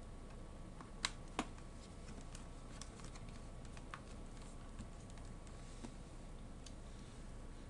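Small clicks and light taps of hands and a screwdriver on a laptop's plastic case and parts during reassembly: two sharper clicks about a second in, then scattered faint ticks.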